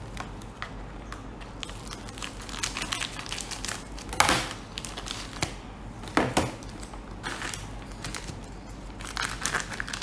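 Clear plastic wrapping crinkling and tearing as it is cut and pulled off a graded coin slab. The crackles come irregularly; the loudest are about four seconds in and about six seconds in, with a flurry near the end.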